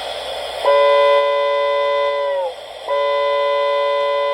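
Toy train steam whistle on a Chicago and Alton model locomotive blowing two long blasts, each a chord of several notes. The first blast sags in pitch as it cuts off. A steady hiss runs underneath.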